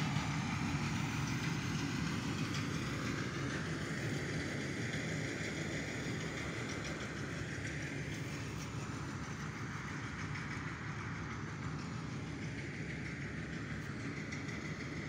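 Diesel tractor engine idling steadily, an even low hum with no change in speed.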